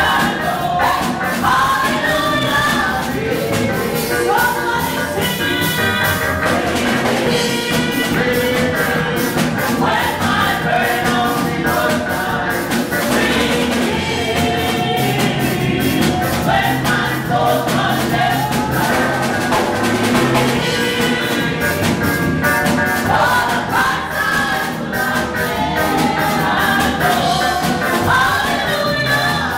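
Gospel praise and worship song: several voices singing together on microphones over a band with drums keeping a steady beat.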